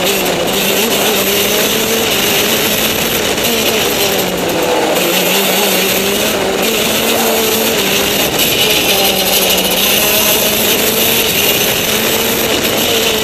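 Racing go-kart engine heard from on board, running hard with its pitch rising and falling gently as the kart is driven through the bends, over a steady hiss.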